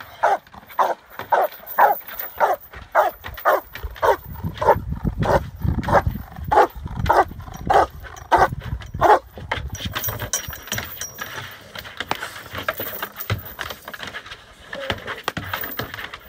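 A dog barking repeatedly, about two barks a second, at a helper holding a bite pillow in protection training. The barking stops after about nine seconds, leaving only occasional weaker sounds.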